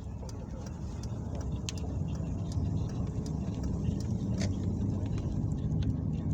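Low rumble of thunder that builds over the first couple of seconds and rolls on, with scattered faint clicks over it.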